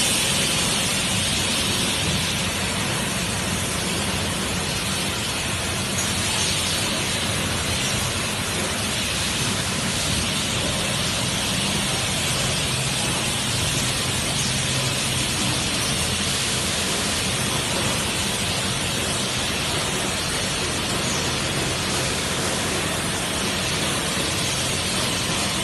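Bottled-water packaging line running at its film shrink-wrapping machine: a steady, even hiss with a faint low hum underneath.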